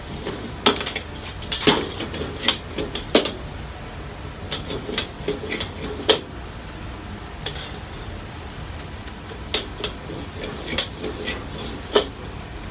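Metal ladle clanking and scraping against a wok as noodles are pan-fried, in irregular knocks, one of the loudest about six seconds in. Under it runs the steady low rumble of the gas wok burner.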